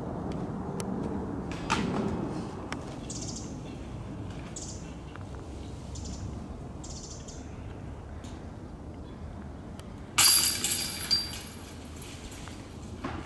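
A disc striking a metal disc golf basket about ten seconds in: a sudden metallic clash and chain jingle that rings for about a second, with a smaller second rattle just after.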